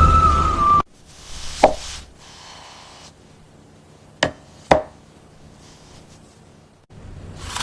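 Three sharp knocks, one about a second and a half in and two close together about half a second apart near the middle, over a quiet background.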